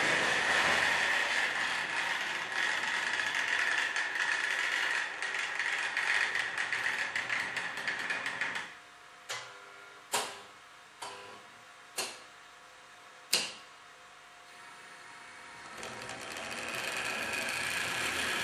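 Trix Express H0 model trains running on the layout: a steady whir of small motors and wheels on the track. About nine seconds in the running noise drops away and five sharp mechanical clicks follow over about four seconds, then a train's running noise rises again near the end.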